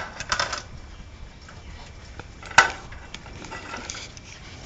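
Knocks and clatter on a metal dog cage: a few light clicks near the start and one sharp knock about two and a half seconds in.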